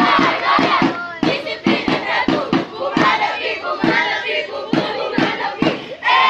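A group of young voices chanting and singing together loudly, kept in time by rhythmic clapping at about three claps a second.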